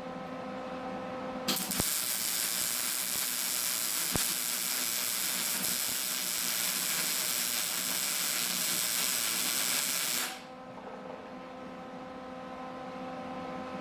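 Arc welding on a steel truck frame: the arc strikes about a second and a half in and runs as one steady crackling hiss for about nine seconds, with a couple of sharp pops, then cuts off suddenly. A steady electrical hum runs under it and carries on after it stops.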